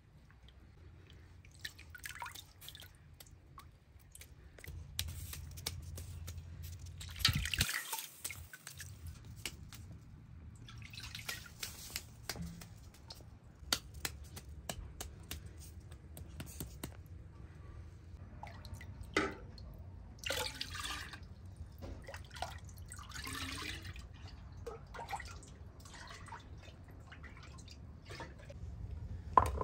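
Water splashing and dripping in short, irregular spells, with scattered light clicks and knocks.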